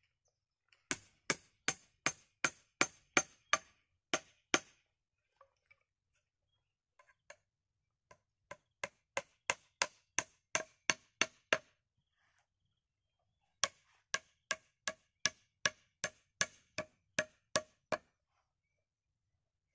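Hatchet chopping wood: three runs of about ten sharp, even blows, roughly three a second, with short pauses between the runs.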